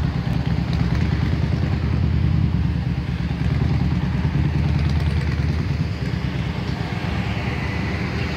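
Vehicle engine idling steadily, a low even rumble.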